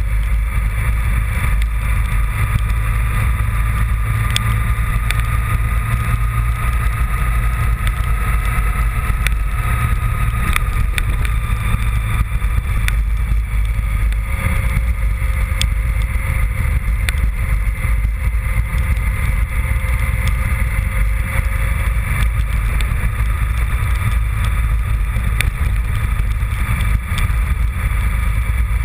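Honda VFR750 motorcycle's V4 engine running at a steady cruise, its pitch drifting slowly, under a heavy rush of wind on the microphone, with scattered light ticks.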